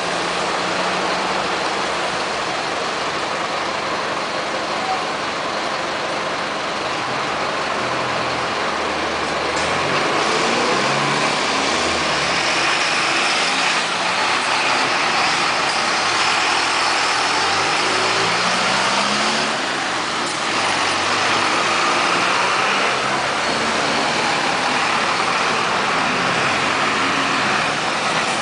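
Mercedes-Benz OF 1722M city bus's diesel engine pulling away and accelerating, its pitch rising and dropping several times as it goes through the gears, with a strange noise blamed on a holed exhaust.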